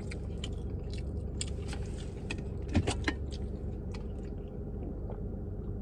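Quiet chewing of food, with small mouth and utensil clicks, over a steady low hum.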